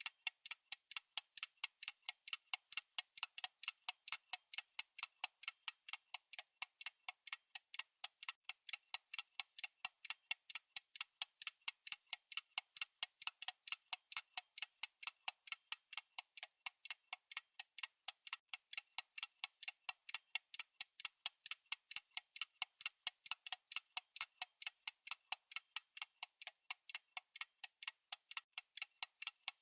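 Steady, evenly spaced clock-style ticking, several sharp dry ticks a second, unchanging throughout.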